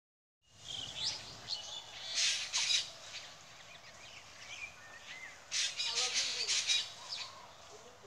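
Several wild birds calling at dawn: a mix of short chirps and whistled notes, with two loud bursts of rapid chattering about two and six seconds in.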